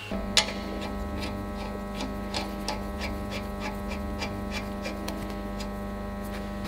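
A wrench clicking repeatedly, about three times a second, as it tightens a hydraulic hose fitting on a valve block. A steady electric hum runs underneath throughout.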